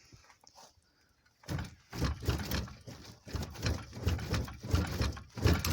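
Wheel-arch roller being worked back and forth against a car's steel wheel arch, a series of irregular knocks and scraping creaks starting about a second and a half in.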